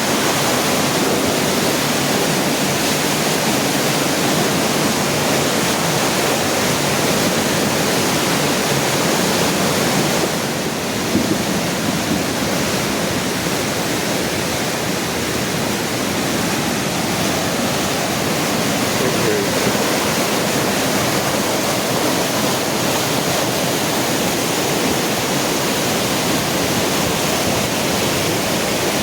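A river in flood, its swollen water rushing past in a steady, unbroken rush of fast-moving water.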